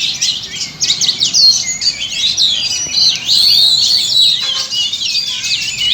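Oriental magpie-robins (kacer) singing loudly: a dense, unbroken tangle of overlapping whistles, trills and chirps from several birds at once.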